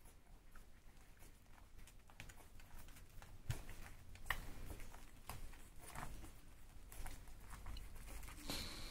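Newborn puppies suckling from their mother: faint scattered smacking clicks and small knocks, busier from about three and a half seconds in, with a brief high tone near the end.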